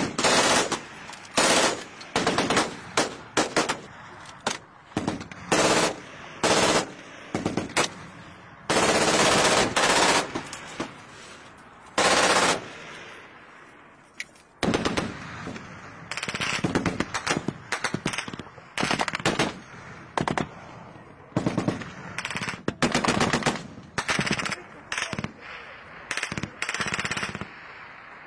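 Automatic machine-gun fire in repeated bursts, mostly short with a few longer ones, the longest running over a second about nine and twelve seconds in. Each burst is followed by an echoing tail.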